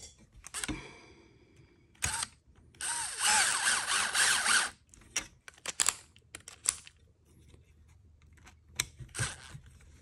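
Small cordless electric screwdriver driving an M3 screw into the plastic servo mount on the chassis: a brief spin about two seconds in, then a steady run of about two seconds, followed by small clicks of parts being handled.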